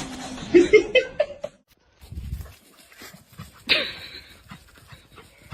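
A dog whimpering in short, rising notes, then after a brief break a single louder, sudden sound about two thirds of the way in.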